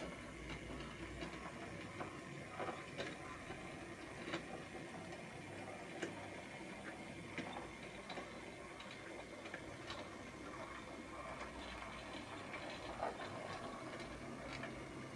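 H0e narrow-gauge model train, a small C50 diesel locomotive with metal-bodied wagons, running slowly along the track. Its wheels give irregular light clicks and ticks over a faint steady hum.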